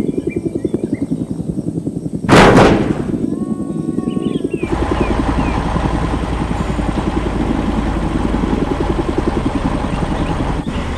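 A heavy vehicle engine sound effect chugging with a rapid pulse, broken about two seconds in by a single loud bang. From about halfway through it settles into a steadier, deeper engine rumble.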